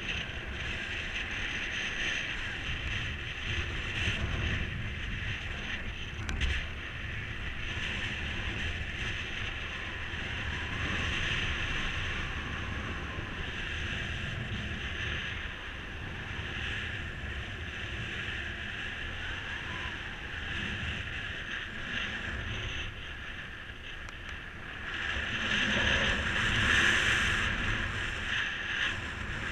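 Wind rushing over the microphone in paraglider flight, a steady buffeting rush with a low rumble that swells louder for a few seconds near the end.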